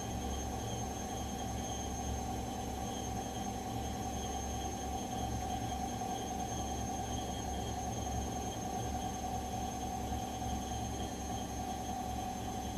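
Gorenje washing machine on its spin cycle: a steady low rumble from the spinning drum, with a constant motor whine over it.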